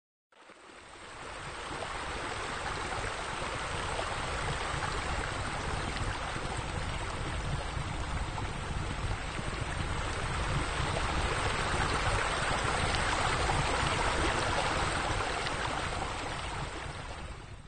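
A steady rushing noise, even and without distinct clicks, fading in over about two seconds and fading out at the end.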